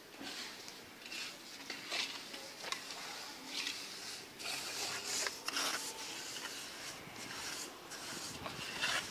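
Faint, intermittent rustling and scraping with light clicks, from hands and utensils working dry food ingredients.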